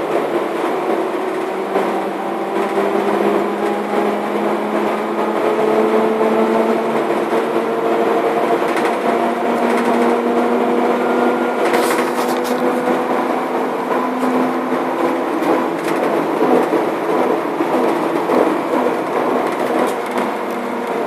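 Škoda 14Tr17/6M trolleybus heard from inside the passenger cabin while it drives. The electric traction drive whines in several tones that slowly rise and fall with speed, over road rumble and interior rattles, with a sharp clatter about twelve seconds in.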